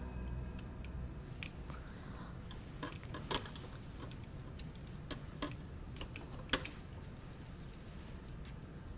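Scattered small clicks and taps of a screwdriver and fingers working inside an old cassette boombox's tape deck, prising out a cassette whose tape the machine has chewed up. A low steady hum sits under the clicks.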